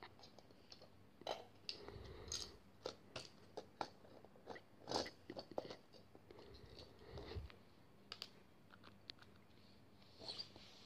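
Faint, irregular plastic clicks and snaps of LEGO pieces being fitted onto and handled on a small LEGO front loader model, about a dozen of them, the loudest about five seconds in.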